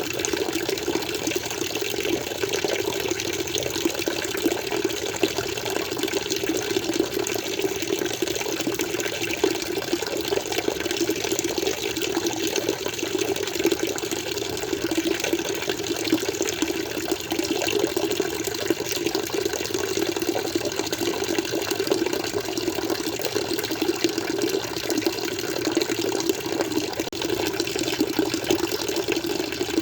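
Water flowing steadily: a continuous, even rush with no breaks or changes.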